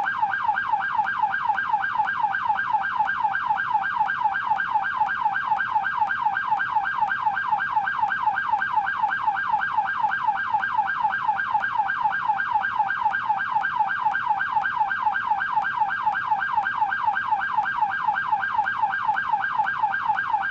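Canadian police car siren in yelp mode: a rapid, steady up-and-down pitch sweep repeating several times a second without a break.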